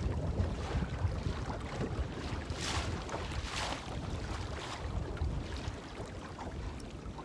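Wind buffeting the microphone, a low irregular rumble, with two brief hissing rushes just under three and about three and a half seconds in.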